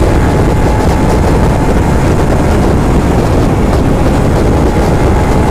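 Steady, loud rush of wind and road noise while riding in a moving vehicle on the road.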